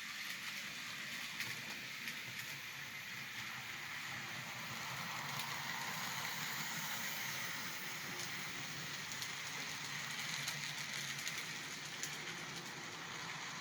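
Model SD70 diesel locomotive pulling piggyback trailer cars along model railroad track: a steady whirr of the motor and rolling wheels with occasional faint clicks over the rail joints. It is a test run over a rebuilt switch-to-flextrack joint.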